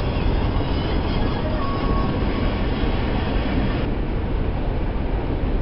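Truck engine and road noise heard inside the cab while driving: a steady, heavy rumble with hiss above it. The hiss thins out abruptly about four seconds in.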